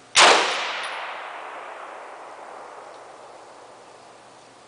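A single rifle shot from a scoped, bipod-mounted rifle, with a sudden sharp crack just after the start, then a long echo that fades away over about four seconds.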